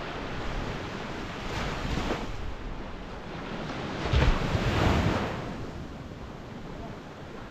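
Small waves breaking and washing up a sandy beach, with wind on the microphone. The surf swells twice, the louder surge about four seconds in.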